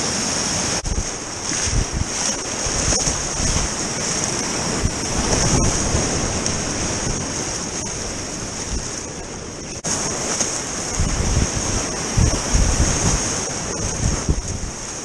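Whitewater rapids rushing loudly around a kayak running them, heard close up from the boat. Gusty low buffeting of water and wind on the camera microphone comes and goes, strongest in the second half.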